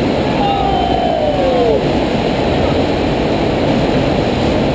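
Steady loud rush of water from a sheet-wave surf ride, its jets pumping a thin sheet of water up the padded slope. About half a second in, a single high tone glides downward over about a second.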